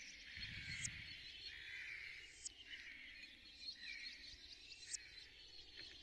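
Faint ambient soundscape: a hissing wash that slowly sweeps up and down in pitch, with three short bright chirps about two seconds apart.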